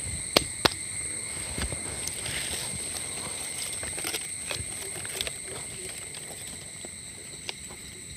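Scattered light knocks and clicks of small firewood sticks being handled and laid into a brick rocket stove, over a steady high-pitched insect drone.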